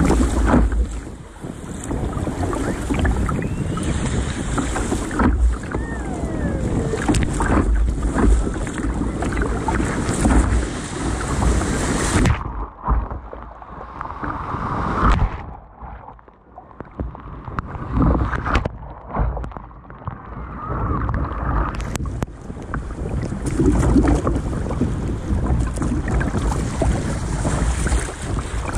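Sea water splashing over a sit-on-top kayak's bow in breaking surf, with wind buffeting the microphone. In the middle the sound goes muffled for about ten seconds, then the splashing and wind noise return.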